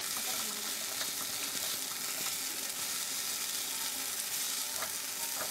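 Shredded cabbage, carrots, capsicum and chicken sizzling steadily in a frying pan as they are stir-fried with a silicone spatula, with a few faint scrapes of the spatula.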